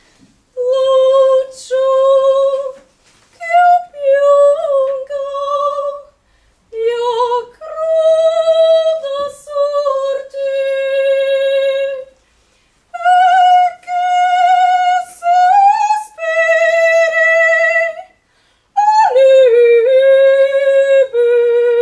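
A high solo voice singing long, wavering notes in short phrases with brief pauses between them, with no accompaniment.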